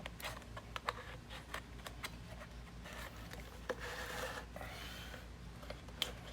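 Hand-held blade cutting through a plastic neck: irregular scraping and rasping strokes with scattered sharp clicks.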